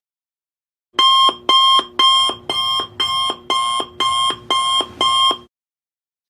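Alarm-clock sound effect: nine electronic beeps, about two a second.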